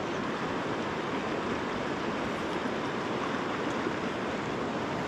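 Fast river current rushing over rocks through riffles and small rapids, a steady, even rush of water.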